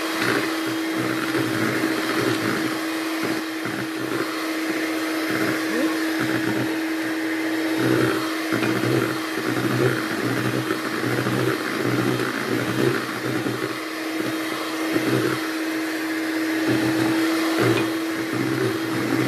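Kenwood electric hand mixer running at one steady pitch, its beaters whipping egg whites and sugar into meringue in a plastic bowl.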